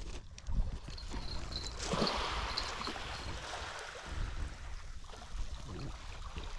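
Water trickling and lapping among shoreline rocks, with a low rumble of wind on the microphone.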